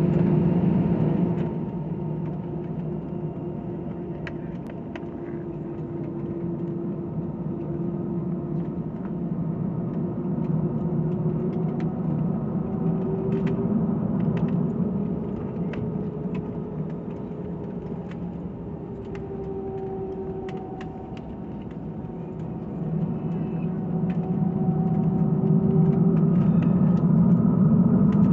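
Airbus A320 airliner's jet engines and cabin hum heard from inside the cabin, running steadily with slowly wavering tones, growing louder over the last few seconds.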